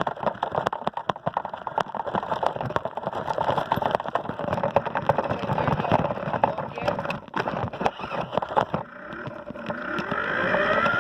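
Toy RC car's small electric motor and plastic wheels rattling and clattering over concrete, with many sharp clicks and knocks. Near the end the motor revs with a whine that rises and falls in pitch.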